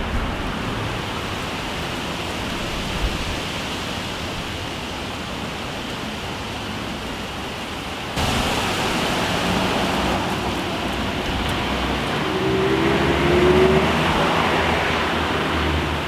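Outdoor street ambience of light breeze and distant traffic, recorded through a Rode VideoMic fitted with its foam windscreen. The sound steps up abruptly about eight seconds in. Near the end a car passes, its engine tone rising as it swells louder.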